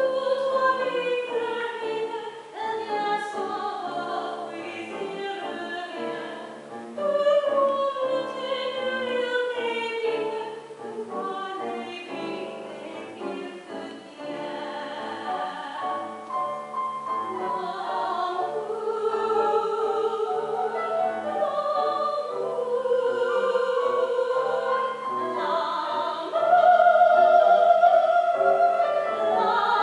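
A woman singing classical song in an operatic style with vibrato, accompanied by a grand piano. The opening phrases fall in pitch.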